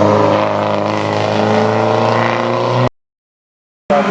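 Rally car engine running hard with a steady, slightly falling pitch; about three seconds in the sound cuts out to silence for about a second, then engine sound returns.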